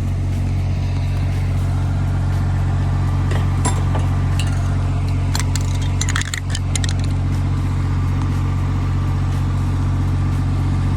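An engine idling steadily, a low even drone, with a few light metallic clicks and clinks about halfway through.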